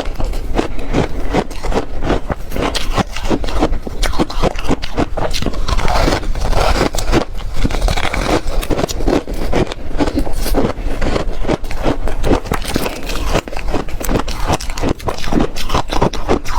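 Close-miked crunching of a frozen ice cake with yogurt: dense, irregular crackling crunches that go on without a break.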